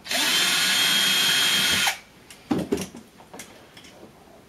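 A handheld power driver runs steadily for about two seconds, backing out an already loosened screw from the metal frame of a Soviet frequency generator, then stops. A few light clicks and knocks follow as the loose screw and parts are handled.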